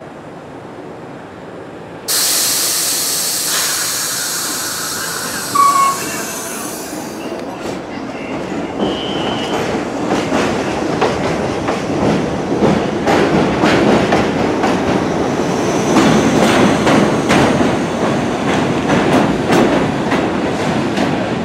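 New York City Subway R62A train: a sudden loud hiss of air about two seconds in lasting several seconds, with a brief tone in the middle. From about ten seconds on, the wheels knock rapidly over the track switches and rail joints as the train moves through, growing louder.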